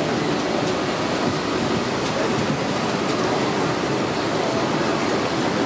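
Steady, dense ambient noise of a busy indoor food hall, with no single sound standing out.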